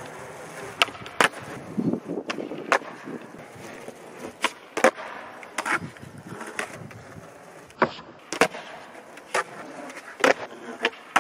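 Skateboard rolling on asphalt, with about ten sharp clacks of the tail popping and the board landing as ollies are attempted on flat ground.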